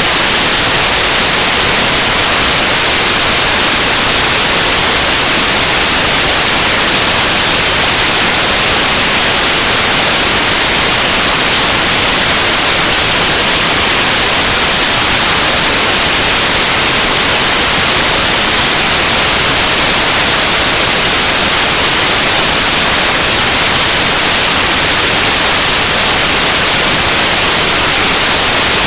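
Loud, steady static hiss from the webcam recording, unchanging throughout, with no singing or speech heard through it.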